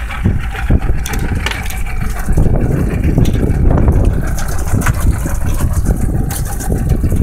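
Boat's outboard motor idling steadily with wind on the microphone, while a stream of water pours into an open deck well (a livewell filling).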